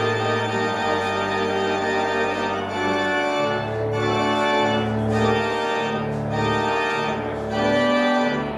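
Organ music: sustained chords over a slow-moving bass line, with the bass notes changing about once a second in the second half.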